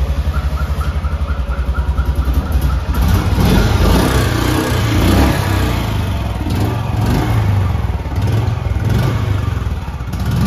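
A 2023 Royal Enfield Bullet 350's single-cylinder engine and exhaust. It idles with an even, rapid thump for the first few seconds, then is revved up and down from about three seconds in.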